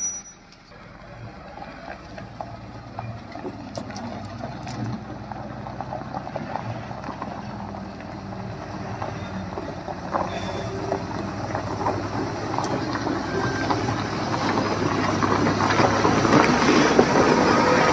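Tata Prima tipper truck's diesel engine running as the truck moves slowly over gravel, with tyres crackling on stones, growing steadily louder as it comes close.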